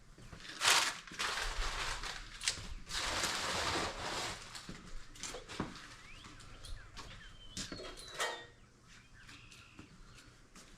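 Rustling and knocking from handling packing material and parts: a loud burst of rustling in the first few seconds, then scattered lighter clicks and knocks.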